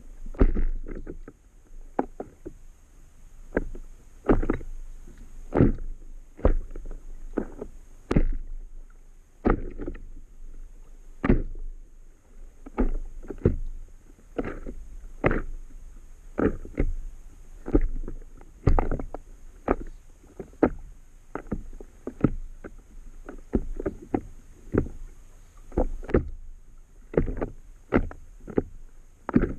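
Small waves slapping against the hull of an inflatable Itiwit stand-up paddle board: a run of short, sharp knocks, irregular but about one a second, over a low watery rumble.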